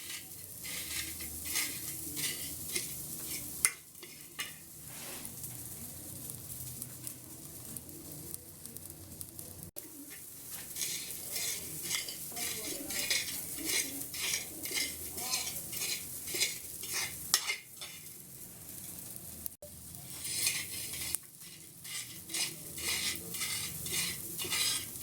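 Roasted borax (suhaga) being ground into a fine powder: hard scraping and grinding strokes. They are softer and more even at first, then quick and rhythmic at about two a second, with a short break about three-quarters of the way through.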